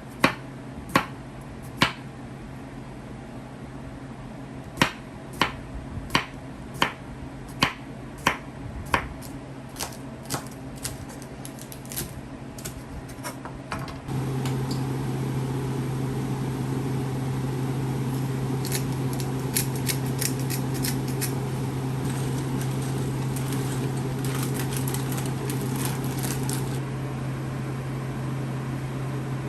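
A run of sharp clicks or knocks, at first scattered and then about one every 0.7 s, over a faint steady hum; about halfway through a motor-driven appliance starts and runs with a steady, louder hum.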